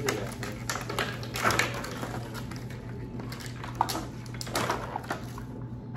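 Toy packaging and small plastic doll accessories being handled: irregular crinkles, clicks and taps, over a steady low hum.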